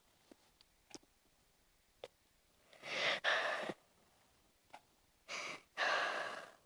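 A person sighing twice, breathy exhalations about three and five seconds in, with a few faint clicks between them.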